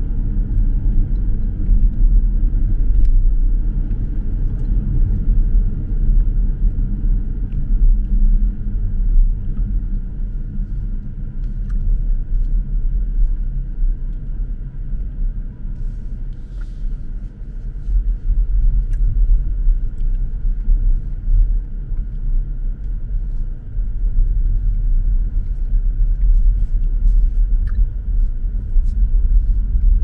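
Car driving on city roads: a steady, loud, low rumble of engine and road noise.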